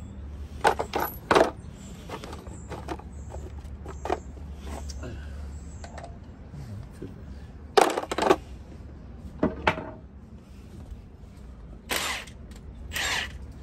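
Metal tools and sockets clinking and clanking as they are picked from a socket set and handled, in scattered sharp clanks: a few about a second in, a cluster around the middle, and two more near the end.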